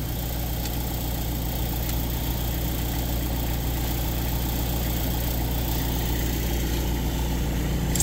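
An engine idling steadily, low and even.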